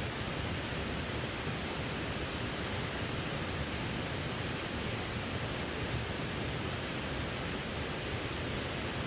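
Steady, unbroken rush of water falling at a waterfall.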